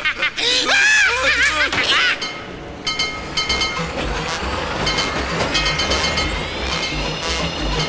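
A character's voice, cackling, for the first two seconds. Then a cartoon machinery sound effect starts: a rhythmic mechanical chugging and clanking, about two to three low beats a second, with steady ringing tones above it.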